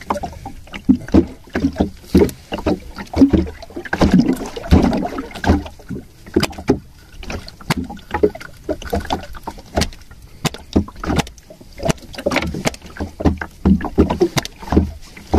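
Water slapping against the hull of a small fishing boat, with irregular knocks and splashes.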